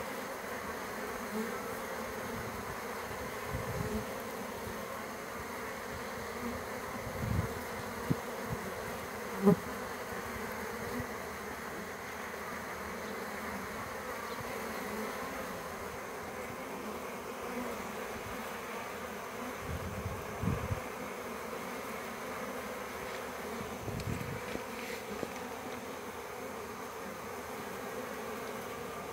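Honeybees and wasps buzzing in flight around a water source: a steady hum of many wings, with a few brief louder buzzes as single insects pass close by.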